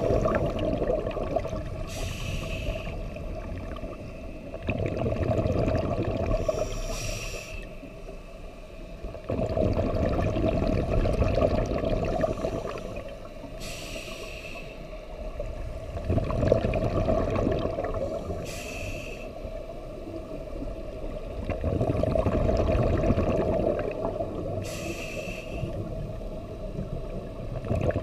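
A scuba diver breathing through a regulator underwater: a short hiss with a faint whistle on each inhale, then a longer rumble of exhaled bubbles. Five breaths, about one every five to six seconds.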